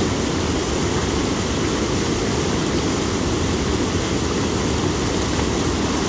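Whitewater rapids rushing over bedrock ledges, with the river running high: a steady, unbroken rushing noise, heaviest in the low end.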